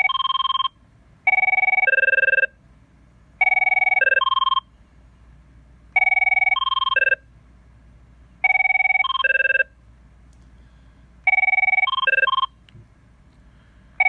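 Electronic ringtones from an Avaya 9620 IP desk phone's speaker: short ring bursts about every two to three seconds, each a held two-note chord followed by a few quick beeping notes. The closing notes change from burst to burst.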